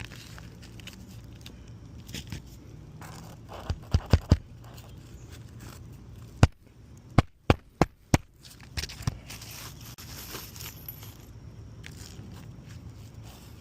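Hand work on old, brittle 3-tab asphalt shingles, with scraping and crackling. Sharp knocks come three in quick succession about four seconds in, then five more between about six and a half and eight seconds.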